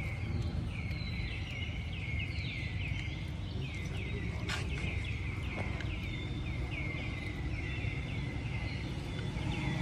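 A rapid, steady series of short high chirping calls, each dropping in pitch, about three a second, over a low background rumble. A single sharp click comes about four and a half seconds in.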